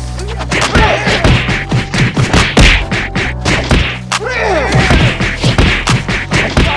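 Many quick whacks and thuds over background music.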